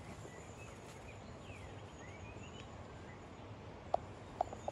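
Quiet open-air ambience with a steady hiss. Birds call faintly in rising and falling chirps in the first half, then give three short, sharp notes near the end.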